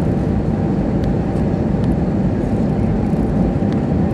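Steady cabin noise inside an Airbus A320-212 on its landing approach: engine drone and rushing airflow heard through the fuselage, with a faint steady whine above it.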